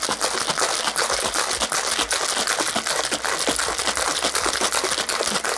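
Ice rattling inside a cocktail shaker half filled with ice as it is shaken vigorously: a fast, continuous clatter of cubes striking the tin.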